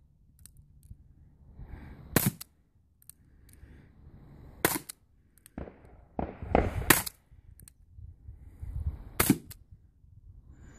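Suppressed Nagant M1895 revolver (7.62×38mmR) fitted with an AAC Evo 9 suppressor firing single shots, five sharp reports roughly two seconds apart, two of them close together, with lighter ticks between the shots.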